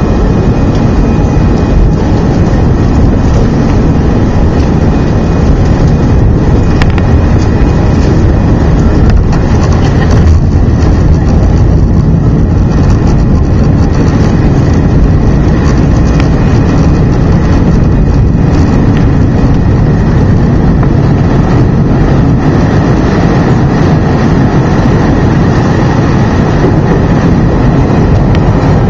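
An Airbus A319's jet engines at takeoff power, heard from inside the cabin: a loud, steady roar with faint high whining tones above it, through the takeoff roll and lift-off.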